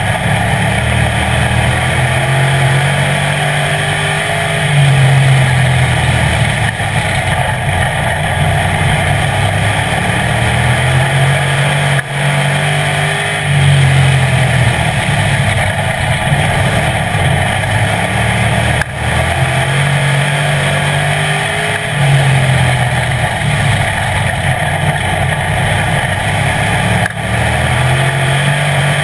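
Street stock race car's engine at racing speed, heard from inside the cockpit, with tyre and wind noise. The engine note climbs and eases in a cycle of about seven or eight seconds, throttle opening on the straights and lifting briefly into the turns of a short oval.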